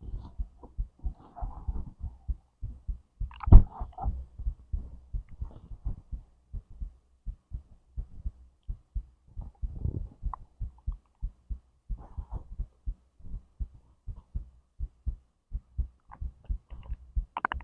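A human heartbeat thumps steadily, with stomach and intestinal gurgles over it; the loudest gurgle comes about three and a half seconds in, and smaller ones follow now and then.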